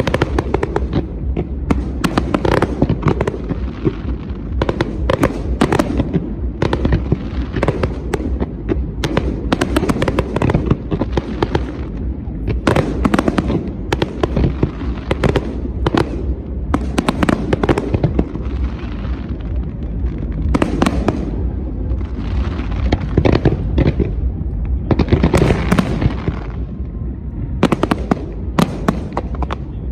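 Fireworks display: a rapid, continuous run of sharp shell bursts and crackling, over a steady low rumble.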